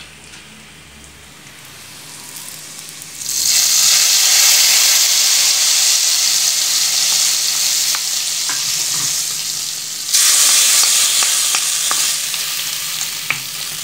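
Hot coconut-oil tempering of mustard seeds, dried red chillies and curry leaves poured into a simmering curry: a loud hissing sizzle that starts suddenly about three seconds in and surges again around ten seconds in.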